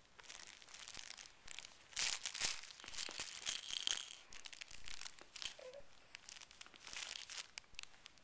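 A baby's soft cloth crinkle book rustling and crinkling in irregular spurts as the baby grabs and squeezes it. The crinkling is loudest about two seconds in.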